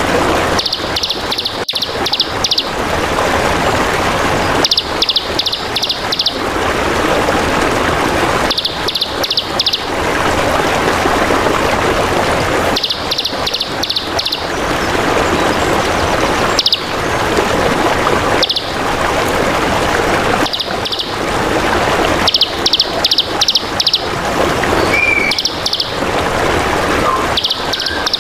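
Trickling water running steadily, with a songbird repeating a quick run of five or six high chirps every few seconds. It is a birdsong 'masteran' recording, played to caged songbirds to teach them song.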